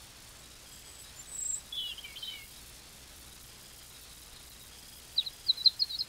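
Small garden songbird calls: a thin high note about a second in, then a short warbled phrase, and a quick run of five or six sharp chirps near the end.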